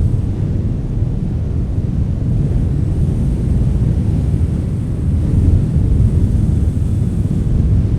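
Wind blowing, a deep steady rumble that swells a little about five seconds in.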